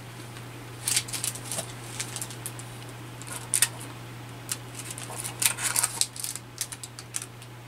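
Small clear plastic jewelry packets being handled, crinkling, with scattered clusters of sharp little clicks, over a steady low hum.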